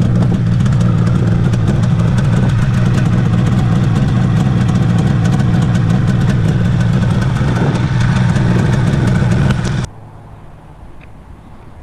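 1979 Suzuki GT550's air-cooled two-stroke three-cylinder engine running steadily, then stopping abruptly about ten seconds in.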